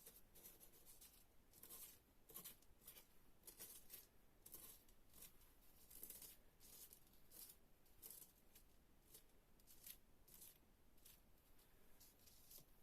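Faint rustling and creasing of paper being folded by hand, in short swishes about one or two a second.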